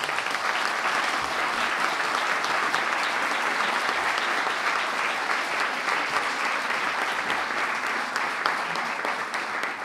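Audience applauding steadily, with the clapping starting right after a speech ends and fading out near the end.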